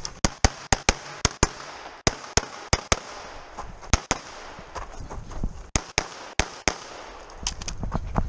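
Semi-automatic pistol fired rapidly, about twenty shots mostly in quick pairs, with short pauses between strings.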